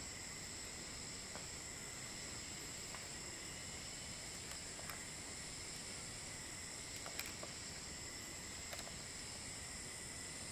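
Steady high-pitched insect chorus of several droning tones, with a few faint clicks scattered through, the sharpest about seven seconds in.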